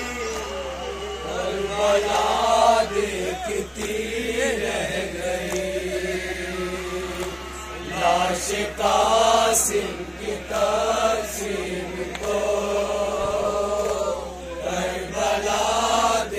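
A male voice chanting a noha, a Muharram lament, into a microphone in long, held melodic phrases.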